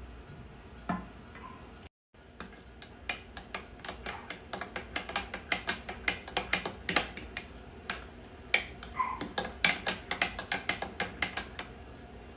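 Rapid, irregular clicking and clacking, a few sharp clicks a second. It starts just after a brief dropout about two seconds in and stops shortly before the end.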